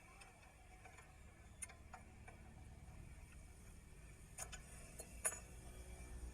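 A few light, separate clicks and taps, as of small parts or tools being handled, the loudest about five seconds in, over a faint low rumble.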